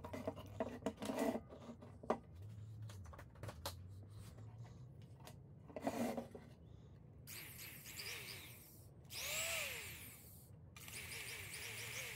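Handling sounds of a small sewing machine motor, its power cord and plastic foot pedal: clicks and knocks in the first seconds and again about six seconds in. Then a whir, with a short louder spell that rises and falls in pitch about nine seconds in, consistent with the motor being briefly spun.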